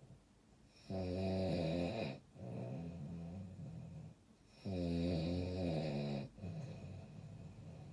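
Snoring in slow, regular breaths. About a second in and again about five seconds in comes a loud, pitched snore lasting about a second and a half, each followed by a quieter, rougher breath.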